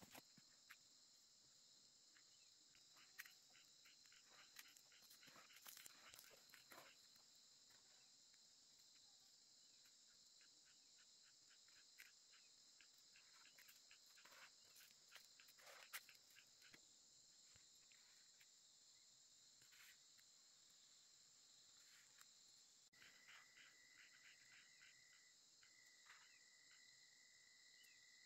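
Faint, steady high-pitched chorus of insects trilling, with scattered light clicks and rustles. About three-quarters of the way through, a second, lower steady trill joins in and breaks off briefly.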